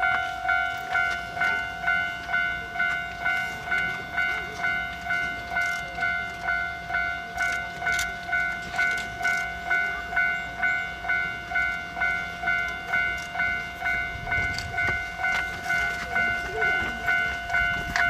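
Japanese railway level-crossing warning bell ringing its electronic 'kan-kan' chime, a little over two strikes a second, steady throughout. A low rumble rises near the end.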